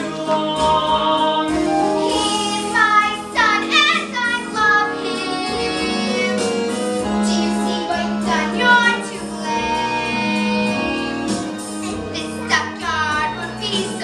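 A children's cast singing a musical-theatre number together, with musical accompaniment.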